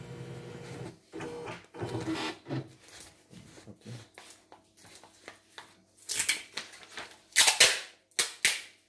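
Embroidery-arm carriage motor of a CNY E960 portable computerised embroidery machine running with a steady hum and stopping about a second in, as the arm moves into position at power-up. Scattered handling noises follow, with a few loud, brief knocks and rustles between about six and eight and a half seconds in.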